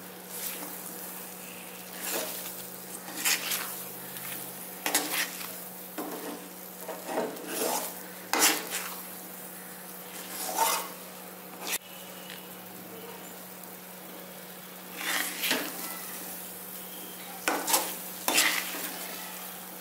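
A ladle stirring and scraping thick, sticky pearl millet halwa around a metal kadai in irregular strokes every second or two, with one sharp click of the ladle on the pan and a pause of a few seconds about two-thirds of the way in.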